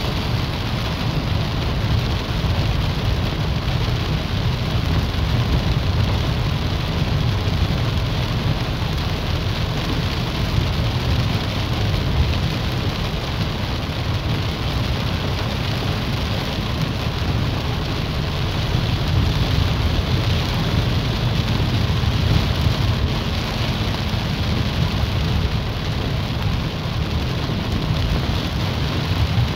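Heavy rain beating steadily on a moving car, heard from inside, over the low, even rumble of the car driving on a wet road.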